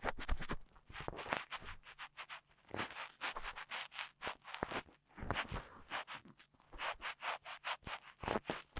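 Dry cotton swab rubbing and scratching on an ear-shaped binaural microphone, rapid short strokes several times a second with brief pauses: ASMR ear-cleaning sounds.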